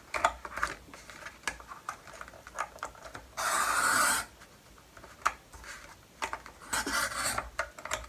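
Sheets of card sliding and rubbing against a plastic tab punch board, with scattered clicks and taps as they are lined up and punched. A longer rasping rub comes a little before halfway, and another busy patch of rustling near the end.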